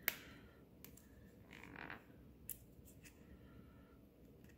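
Plastic leave-in conditioner bottle being handled: a sharp click just after the start, a short soft rustle, then a few faint clicks.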